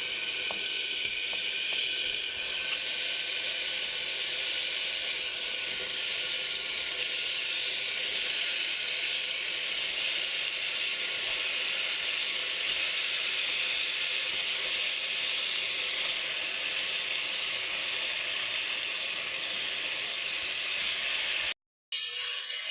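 Food sizzling steadily in hot oil in a pan, with a brief break near the end.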